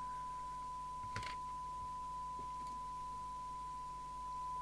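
Steady test tone from the York JCB863 CB radio's speaker: the signal generator's modulation tone recovered by the receiver during alignment. A single short click about a second in.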